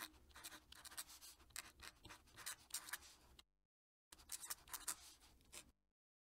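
Fountain pen nib scratching faintly across paper in quick strokes of cursive handwriting. The sound cuts off suddenly about three and a half seconds in, resumes for about a second and a half, then cuts off again.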